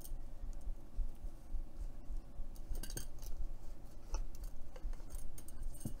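Quiet handling sounds: a cotton strap sliding off a brass Fast Turn tool's tube, with a few faint light metallic clinks as the tool is handled.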